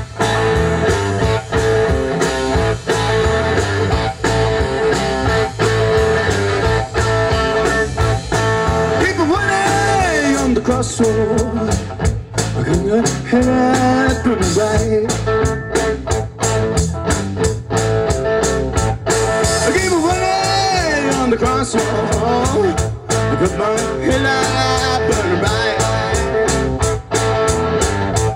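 Blues-rock song in an instrumental break: a guitar lead with bent, sliding notes over a steady band with drums.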